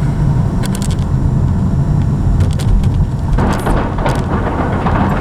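Road noise inside a moving car: a steady low rumble, with a few sharp ticks and rattles. From a little past halfway it turns into a louder, rougher clatter.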